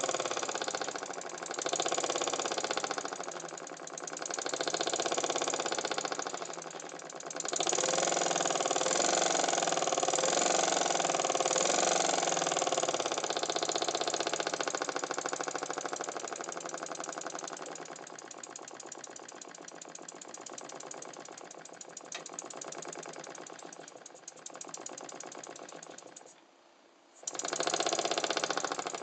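Small single-cylinder oscillating model steam engine running on compressed air, with a fast, even beat of puffs and clatter. It swells and fades in loudness, almost stops near the end, then picks up again.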